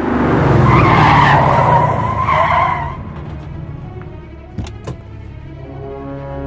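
A car braking hard, its tyres screeching for about three seconds as it skids to a stop. Two sharp knocks follow, then music begins near the end.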